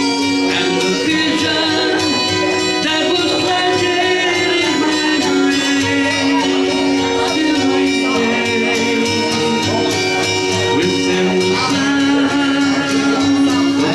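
Live acoustic music: a guitar strummed steadily under a melody of long held notes, with singing.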